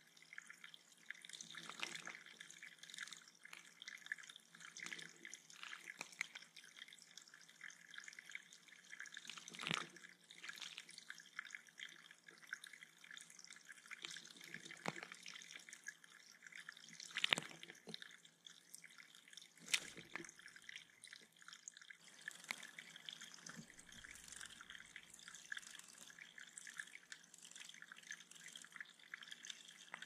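Small waterfall trickling and dripping into a shallow rock-lined bird pond, faint and steady, with a few sharper splashes, the loudest about two thirds of the way in, as a sparrow bathes in the water.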